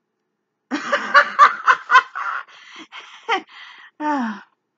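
A woman laughing: a burst of quick laughs starting about a second in, trailing off into softer breathy laughs, with a last falling one near the end.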